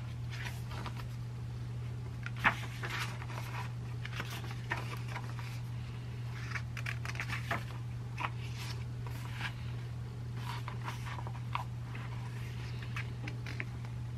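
Pages of a paperback book handled and turned by hand: paper rustling and soft ticks, with one sharper tap about two and a half seconds in, over a steady low hum.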